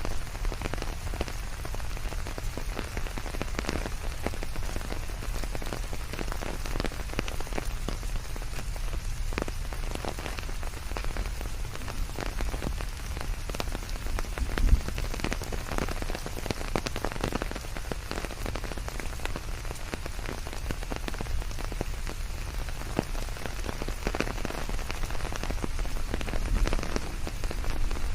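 Steady rain falling in a forest, many separate drops ticking over an even hiss mixed with white noise and a low rumble. One drop hit stands out louder about fifteen seconds in.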